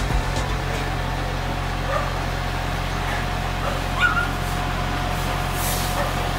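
A dog giving a few short yips and barks, the loudest about four seconds in, over the steady low hum of a fire truck's engine running.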